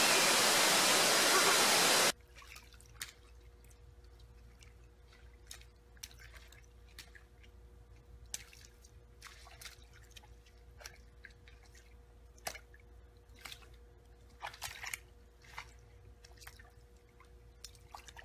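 A loud, steady rushing noise stops suddenly about two seconds in. A capybara then wallows in a shallow mud puddle: irregular soft wet squelches, drips and small splashes over a faint steady hum.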